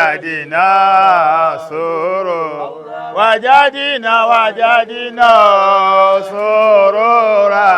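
Male voice chanting an Arabic Islamic refrain in long, wavering held notes.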